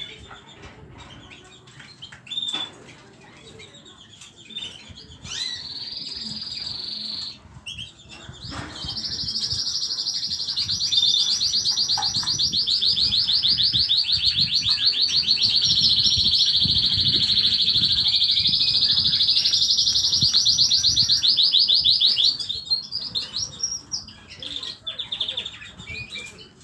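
Small pet cage bird singing: scattered chirps, a short trill about five seconds in, then a loud, fast, high trill lasting about thirteen seconds, followed by more chirps.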